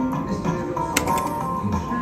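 Slot machine game music playing steadily from a betting-shop gaming terminal, with a sharp click about halfway through.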